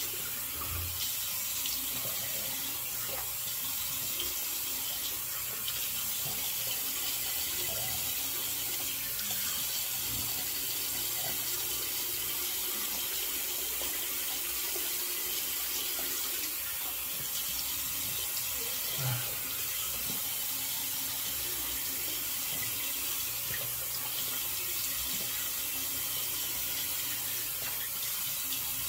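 Bathroom tap running steadily into the sink while the face is rinsed after a shave.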